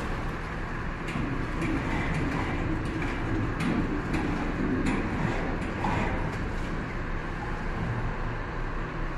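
Bottled-water refilling machine running with a steady hum and rush. A few sharp clicks come around the middle as its valve handles are worked and the plastic gallon jugs are moved.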